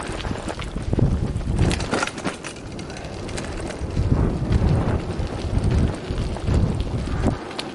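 Mountain bike rolling over a loose gravel track: a steady rumble of tyres on stones, broken by many sharp knocks and rattles as the bike jolts over the rough surface, with wind buffeting the microphone.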